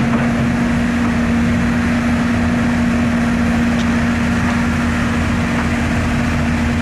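Cat 319D LN excavator's diesel engine running steadily under load, with a constant hum, as the machine works its tracks and boom to climb a steel frame.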